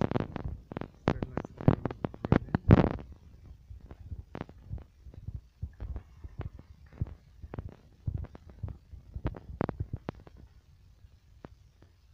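Footsteps climbing marble stairs, a run of irregular thumps and knocks, loudest over the first three seconds and then lighter and sparser.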